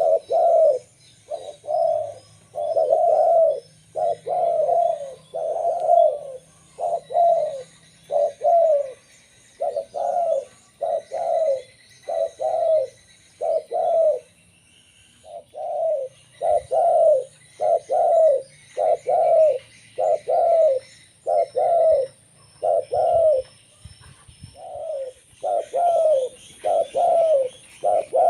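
Zebra dove (perkutut) cooing: a long run of short, evenly repeated coos, about one to two a second, with a short pause about halfway through. Faint high chirps of other small birds sit behind it.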